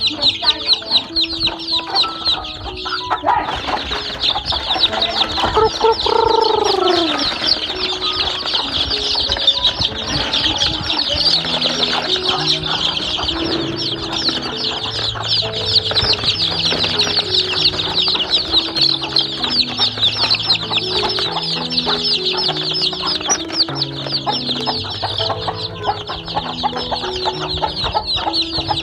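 A flock of young chicks peeping continuously, many rapid high peeps overlapping. About three seconds in, background music with slow, held low notes comes in underneath, and a single lower, drawn-out falling call sounds around six seconds in.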